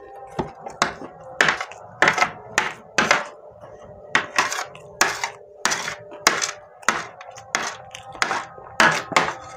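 A metal spoon scraping across a serving tray, gathering up leftover rice, in a run of over a dozen short, quick scrapes at an uneven pace.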